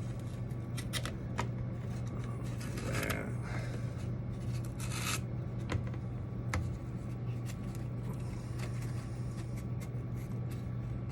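Light scrapes, rubs and small clicks of foam pieces being handled and marked by hand, with a couple of brief scratchy strokes about three and five seconds in, over a steady low hum.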